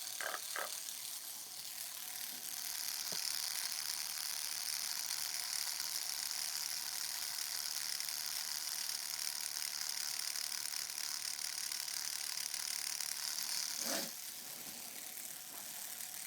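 Homemade tattoo machine, built from a mechanical pencil and a guitar-string needle, buzzing steadily while tattooing. The buzz gets louder about two and a half seconds in and cuts off about fourteen seconds in.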